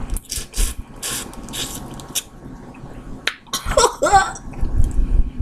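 Wet sucking and slurping at a boiled crawfish head, a run of short smacking bursts in the first two seconds, then a click and a brief wordless vocal sound about four seconds in.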